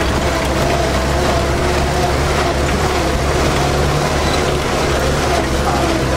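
Engine of a Soviet-era off-road vehicle running steadily under load while it climbs a rocky track, heard inside the cab as a low, even drone with rattling and road noise over it.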